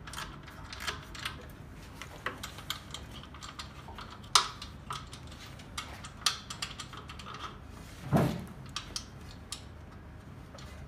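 Scattered metallic clinks and clicks of hand tools on bolts as a burner's fan housing is tightened down, with a sharp clink about four seconds in and a duller knock about eight seconds in.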